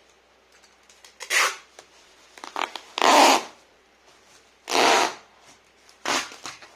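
Packing tape pulled off the roll in four short, rasping rips about two seconds apart while a parcel is taped up.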